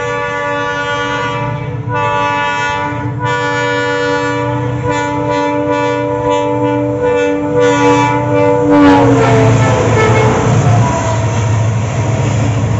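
Air horns of twin EMD WDP4 diesel locomotives sounding continuously in a several-note chord, with brief breaks that come quicker from about five seconds in. About nine seconds in the horn's pitch drops as the locomotives pass, and the noise of the passing train takes over.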